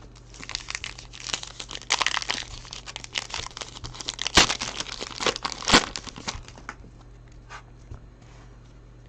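Foil wrapper of a trading card pack being torn open and crinkled by hand, with two sharp louder crackles about four and a half and six seconds in.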